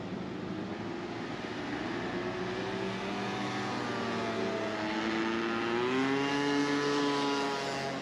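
Road traffic: engines running as vehicles pass close by. One engine rises in pitch about five seconds in as it accelerates, is loudest near the end, then drops away.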